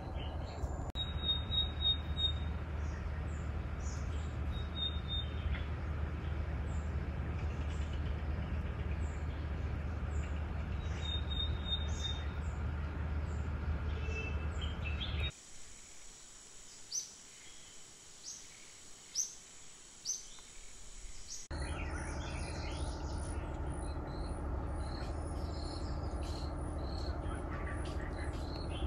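Wild birds chirping and trilling in forest over a steady low background rumble. About halfway through, the sound drops for several seconds to a quieter stretch with a few high chirps; near the end a run of very high, evenly spaced pips comes in.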